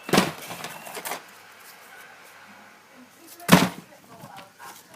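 Fireworks going off: a bang with crackling about a quarter second in that lasts about a second, then a second, louder bang about three and a half seconds in.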